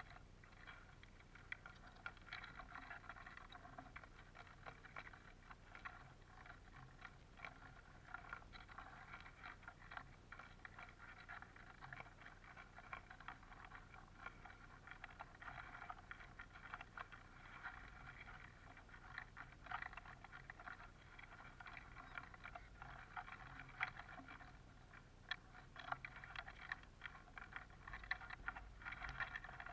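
Faint, dense clicking and tapping of Eurasian siskins pecking at and cracking black sunflower seeds in a wooden feeder tray.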